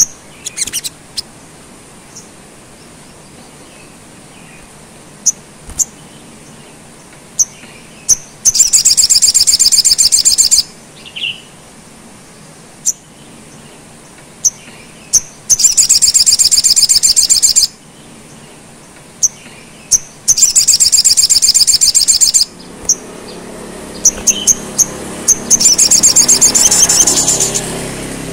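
Male olive-backed sunbird singing: scattered single sharp, high chirps between four loud, rapid, high-pitched trills, each lasting about two seconds.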